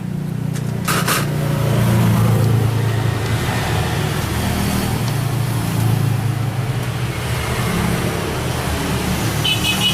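Small generator engine running steadily, with a brief clatter about a second in.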